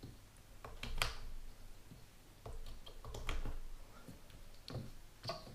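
Tangled test-meter leads being pulled apart by hand: cables rustling, with a few light clicks and knocks about a second in, a little past three seconds, and near the end.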